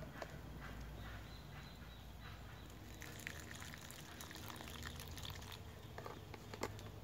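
Faint clicks and knocks of a food container and its screw lid being handled and twisted.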